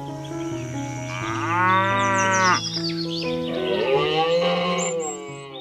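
A cow mooing twice, each call rising then falling in pitch, over background music.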